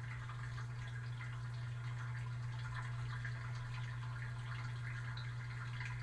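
Water spraying and splashing onto dishes inside a running dishwasher, heard from within the wash tub, with many small drips and patters over the steady low hum of the dishwasher's wash pump.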